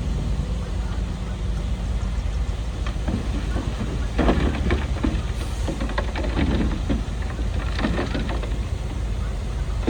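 Heavy diesel earthmoving machinery running with a steady low rumble. From about four seconds in, a few seconds of clattering and scraping sounds ride over the engine.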